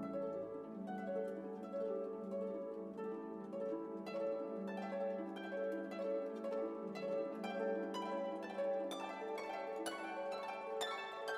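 Background instrumental music of plucked strings, like a harp or pizzicato, with the notes coming more thickly from about four seconds in.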